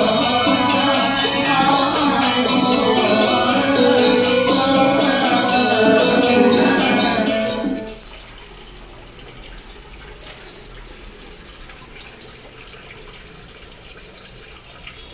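Music with a steady beat for about eight seconds, then it cuts off, leaving the steady trickle of water from a small decorative rock fountain.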